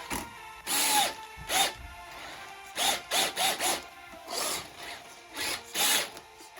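RC car's electric motor revving in about nine short bursts, each whining up and down in pitch, with a cluster of four close together near the middle.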